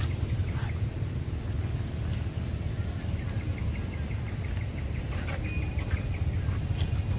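Outdoor ambience: a steady low rumble with runs of rapid, faint, high chirps, most plainly in the middle of the stretch.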